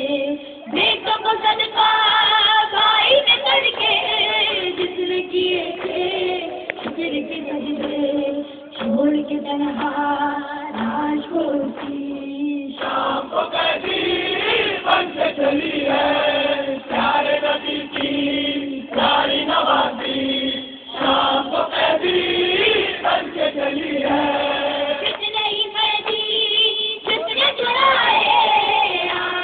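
A noha, a Shia lament for Imam Hussain, sung in Urdu by several voices together in chorus, with long held and wavering sung lines.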